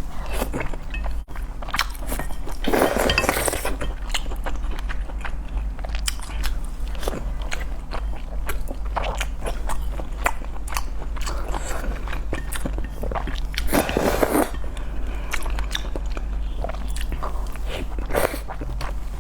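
A person eating spicy noodles: wet chewing and biting clicks throughout, with two longer, louder noisy bursts, about three seconds in and about fourteen seconds in, over a steady low hum.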